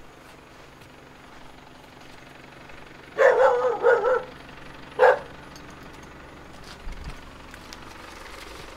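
A dog barking: a quick run of three barks about three seconds in, then one more bark about a second later.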